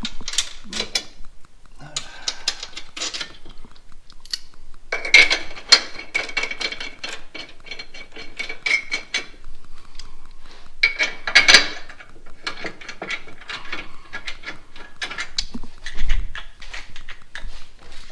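Hand tools and small metal hardware (bolts and washers) clinking and rattling as engine-bay plastic covers are refitted, with runs of rapid clicking.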